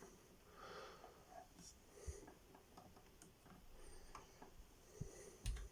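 Near silence: room tone with faint scattered small clicks and rustles, and a soft thump near the end.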